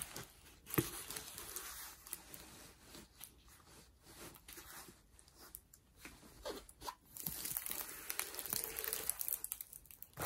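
Plastic crinkling and rustling with irregular small crackles as a rolled diamond painting canvas, covered with its plastic film, is unrolled and handled. The crinkling gets denser and louder in the last few seconds.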